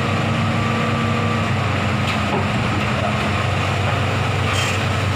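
Excavator's diesel engine running steadily with a low drone, while a higher steady tone fades out about three and a half seconds in.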